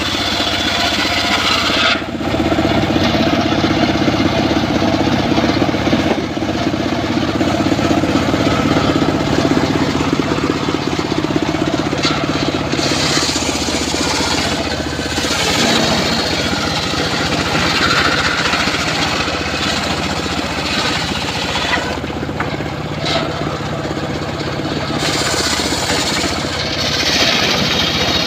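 Circular saw running and cutting wood: a continuous loud machine sound whose tone shifts several times, around two, thirteen and twenty-two seconds in, as the blade is loaded.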